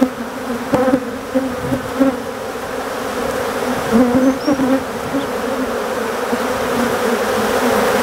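Honeybees of a queenless Africanized colony buzzing around the opened hive: a steady, swelling hum, with a few light knocks in the first couple of seconds.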